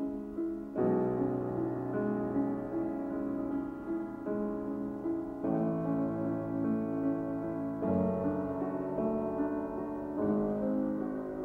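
Slow background piano music, with a new low chord coming in about every two and a half seconds.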